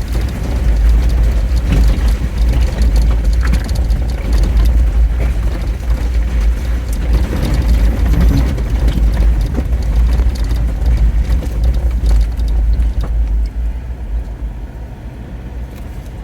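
Jeep Wrangler driving, its engine and road noise making a heavy low rumble with a rough rushing noise over it. It gets quieter over the last few seconds as the Jeep slows.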